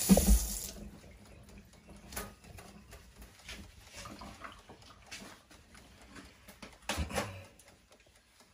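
Kitchen sink tap running with hands being rinsed, shut off under a second in, with a low thump just as it stops. Faint scattered clicks and handling noises follow, with a couple of louder knocks about seven seconds in.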